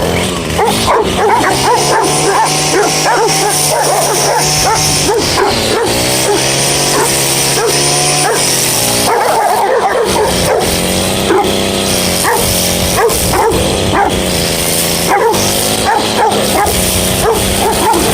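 Rottweiler barking and yipping over and over, with a steady low drone underneath that shifts in pitch a few times.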